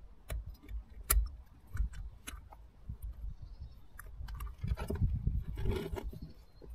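Small metal Trabant carburettor parts clicking and clinking against each other as they are fitted back together by hand, with a denser stretch of handling noise around five seconds in.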